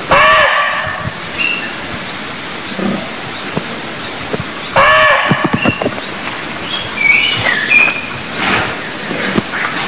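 Barking deer (muntjac) giving two short, loud barks about five seconds apart, one at the start and one about halfway through. Behind them runs a steady series of high, short rising chirps about twice a second, with a few other bird calls near the end.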